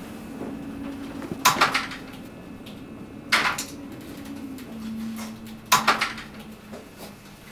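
Three short bursts of clattering clicks, about two seconds apart, over a faint steady low hum.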